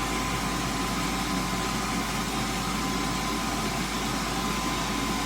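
Electric wall-mounted hand dryer blowing a steady stream of hot air, switched on by its infrared sensor with hands held under it: an even rushing of air with a thin steady motor whine.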